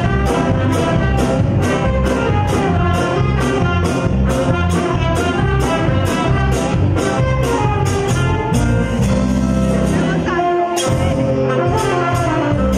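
Live band playing an instrumental number: trumpet and saxophones carry the melody over bass, keyboard and drums with a steady beat of about three strokes a second. The bass drops out briefly about ten seconds in.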